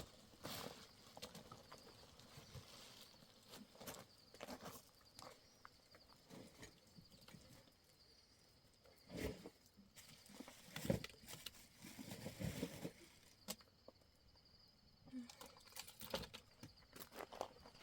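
Faint, irregular rustling, crunching and knocks of people moving about on rough ground, with one sharper knock about eleven seconds in.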